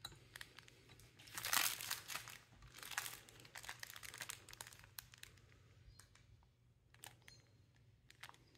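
Clear plastic bag of diamond-painting drill packets crinkling as it is handled and turned over, loudest about a second and a half in, then fainter crackles and ticks.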